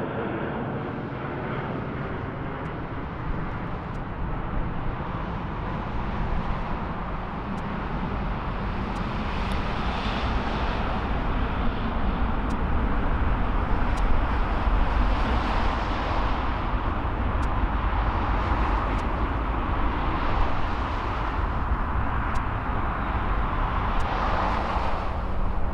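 Jet airliner engines on the runway, a loud low rumble and rushing noise that swells through the middle and stays strong to the end.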